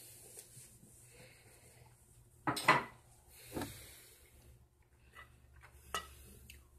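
Small objects being handled: a clatter about two and a half seconds in, a lighter knock a second later, and a short click near the end, like hard things clinking against each other.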